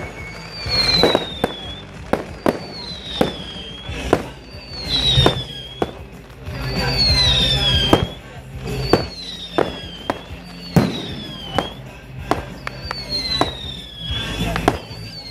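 Fireworks going off: a quick series of sharp bangs and crackling bursts, with a high falling whistle repeating about once a second from whistling shells.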